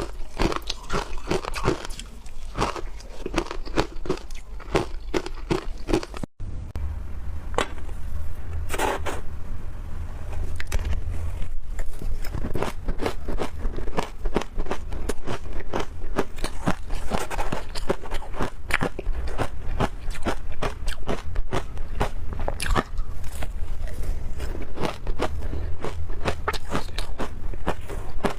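Close-up biting and chewing of frozen ice: dense, rapid crunching and crackling. There is a brief dropout about six seconds in, after which a low hum runs underneath.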